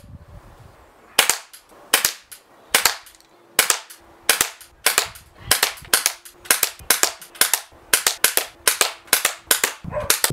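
Glock 17 CO2 .177 pellet pistol firing a long string of about twenty sharp, snappy shots. They start under one a second and speed up to about three a second.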